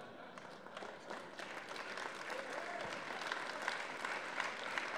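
Audience applauding, growing louder over the first two seconds and then holding steady.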